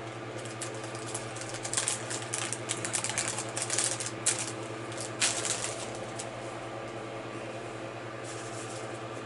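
Small plastic LEGO pieces clicking and rattling as they are handled, a dense run of clicks for about six seconds that thins out near the end, over a steady low hum.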